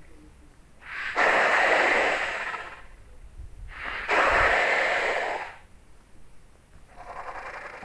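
Masiakasaurus dinosaur sound effect: two long, breathy, hissing exhalations, each lasting about a second and a half, about three seconds apart. A fainter, slightly pitched call follows near the end.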